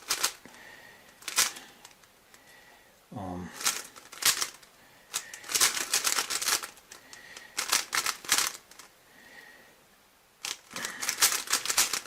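Rubik's cube being turned quickly during a speedsolve: bursts of plastic clicking and clacking as the layers snap round, with short pauses between bursts.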